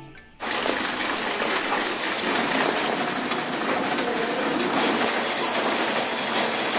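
Workshop machinery: a howling generator and running electric sewing machines make a loud, steady noise that starts suddenly about half a second in. A high whine joins about five seconds in.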